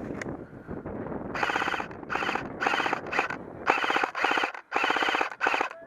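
Airsoft gun fired in a string of short full-auto bursts, each a rapid buzz of shots, starting about a second and a half in after wind on the microphone.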